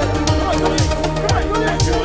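Background music with a steady dance beat: a deep bass drum that drops in pitch on each hit, about twice a second, under hi-hats and a melody.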